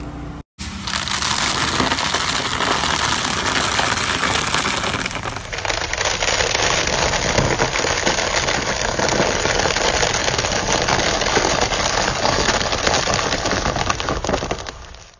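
A car tyre crushing things in two edited clips: a short burst of crunching, then uncooked spaghetti sticks standing in green floral foam blocks snapping and crunching under the rolling tyre, a dense run of crackles for about ten seconds.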